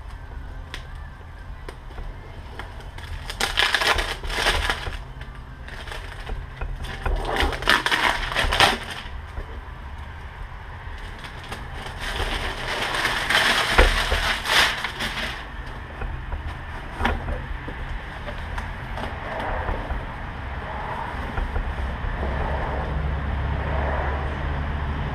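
A cardboard product box and its packing being opened and handled: bursts of rustling and scraping about four, eight and thirteen to fifteen seconds in, over a low steady rumble.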